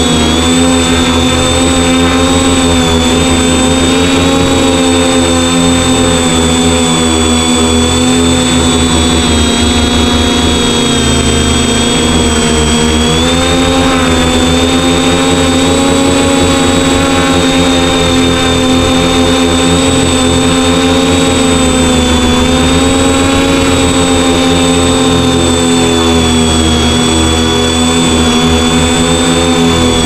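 Quadcopter's electric motors and propellers, heard from on board the craft: a loud, steady buzzing whine. Its pitch wavers up and down as the quad holds and shifts position in the wind, dipping and climbing again about halfway through.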